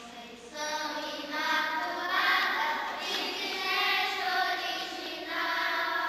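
A group of schoolgirls singing a hymn together, starting about half a second in, with long held notes.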